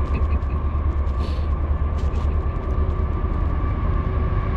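Low, steady rumble of a CSX freight train coming on from a distance at speed, with a faint steady tone above it.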